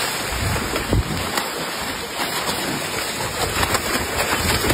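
Water gushing and splashing onto a tiled floor as large live fish thrash and slap on the wet tiles, with a few sharp knocks among the steady rush, the clearest about a second in.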